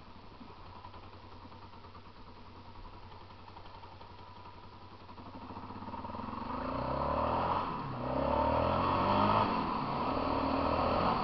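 Motorcycle engine, low for the first few seconds, then revving up and getting louder from about six seconds in, its pitch rising and falling with the throttle.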